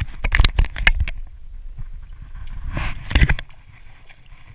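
A quick run of sharp knocks and rustles in the first second, then a short burst of noise about three seconds in, over a steady low rumble of wind on the microphone.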